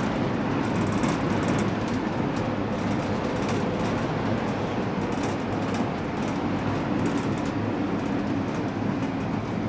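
Steady running noise of a gondola cable car in motion, heard from inside the cabin.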